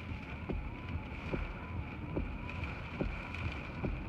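Steady wind and low rumble of rough, choppy surf, with a faint squeak repeating about twice a second.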